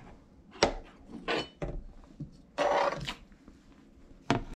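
Handling noise at a kitchen counter: a few short knocks and rubbing sounds, the loudest a scraping rustle lasting about half a second just past the middle.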